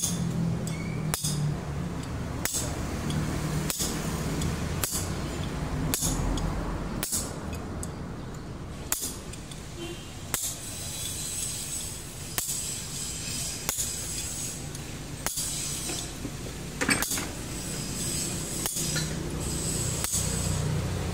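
Sharp metallic clinks about once a second, from a screwdriver striking and working against a metal motor end housing to knock its bearing out.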